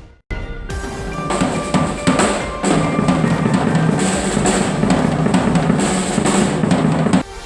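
Drum-heavy music with a full drum kit, bass drum and snare prominent. It starts after a brief silence and cuts off suddenly near the end.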